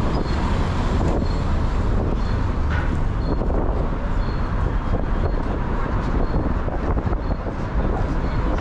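City street ambience heard while walking: a steady low rumble of wind on the microphone mixed with car traffic. A faint high tick repeats about once a second.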